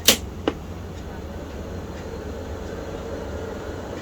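Two sharp clicks about half a second apart, typical of a Tandy 1000 EX computer being switched on for a test, followed by a steady low hum from the running machine.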